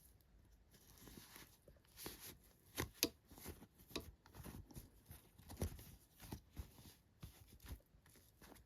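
Toy packaging being handled and opened: faint rustling and tearing with scattered small clicks and taps, the sharpest a few seconds in.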